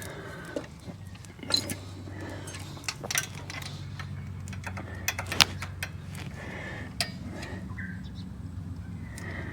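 Scattered small clicks and taps of hand tools working at a worn Harley stator plug and its wiring connectors, over a low steady hum.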